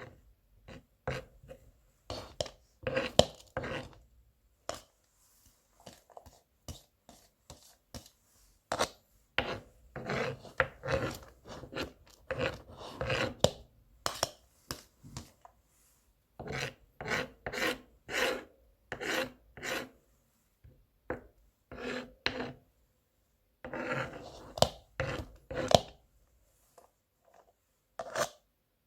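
Kitchen knife mincing garlic on a cutting board: runs of quick chops with short pauses between them.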